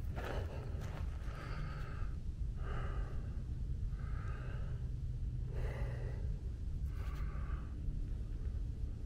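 A person breathing heavily and regularly, one breath about every second and a half, over a steady low rumble of wind on the microphone.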